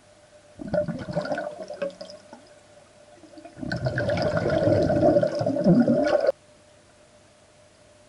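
Breath exhaled underwater, bubbling and gurgling as it is heard through an underwater microphone, at the end of a breath-hold. A short burst comes about half a second in, then a longer, louder stream of bubbles starts midway and cuts off suddenly.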